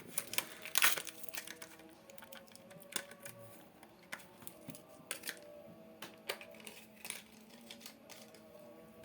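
Plastic packaging of a new laptop RAM stick being opened by hand: irregular crinkles and sharp clicks, busiest about a second in.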